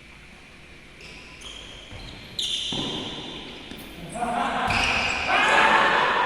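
Badminton play in a large indoor sports hall: impact sounds of racket hits and court play echo in the hall. Sound picks up sharply a little over two seconds in, and people's voices grow louder toward the end.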